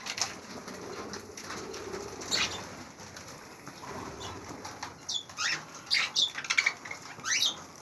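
Budgerigars chirping in short, quick falling calls, more of them in the second half, with wings flapping.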